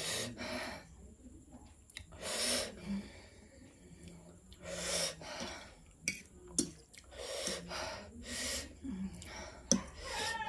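A woman breathing hard through her mouth, with sharp hissing breaths every one to three seconds from the burn of extra-spicy noodles. A few short clicks of a metal fork against the plate come in the second half.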